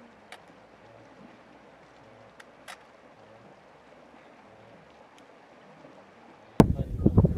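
Faint, steady wash of river water with two small clicks or splashes. Near the end a much louder gusty noise, like wind on the microphone, cuts in abruptly.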